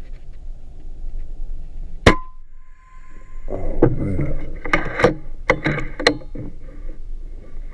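A single shot from a .30 calibre FX Impact M3 PCP air rifle about two seconds in: a sharp crack followed by a metallic ring lasting about a second. After it comes a run of sharp metallic clicks and handling noise as the rifle is moved.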